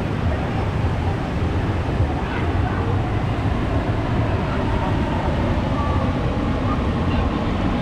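Steady low rumble of a large military jet's engines as the aircraft flies past, holding an even loudness throughout.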